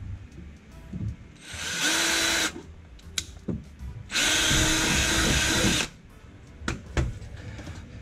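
Cordless drill with a twist bit boring a hole up through a car's underbody panel, in two short runs, the second longer than the first.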